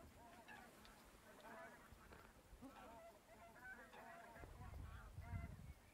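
A flock of geese honking: many short, overlapping calls, faint. About four and a half seconds in, wind on the microphone adds a low rumble for over a second.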